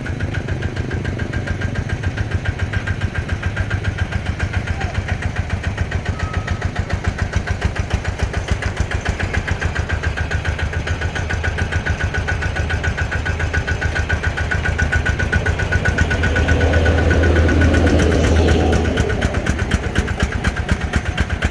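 Kubota ZT140 single-cylinder diesel engine of an e-taen farm truck running with a steady, rapid chugging as the truck is driven off, growing louder for a few seconds near the end.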